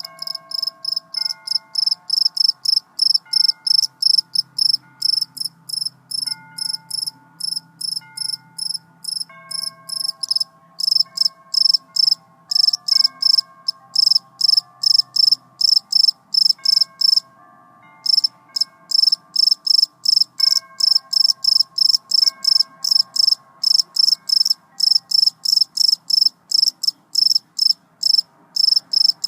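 A cricket chirping close by: a loud, even run of short, high chirps, about two to three a second, with one brief pause partway through.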